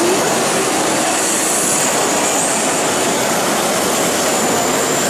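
Radio-controlled drift cars running on the track: a thin, high motor whine that shifts in pitch over a steady wash of noise.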